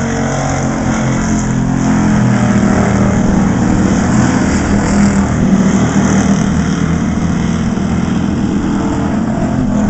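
Pure stock dirt-track race cars' engines running hard as the field races around the oval: a loud, steady drone of several engines that swells toward the middle.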